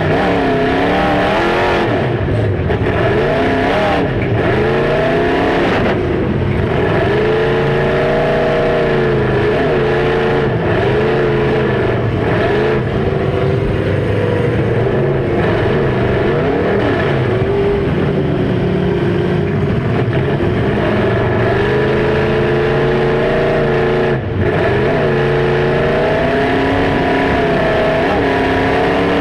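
Demolition derby cars' engines revving up and dropping back again and again, several at once, loud and unbroken.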